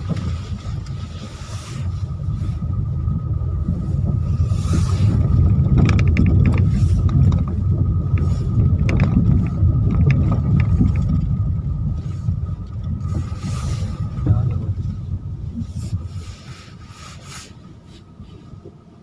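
Inside a car's cabin, the car drives slowly over a bumpy, unpaved sandy track: a low engine-and-tyre rumble with knocks and rattles as the body jolts. It dies down near the end as the car slows to a stop.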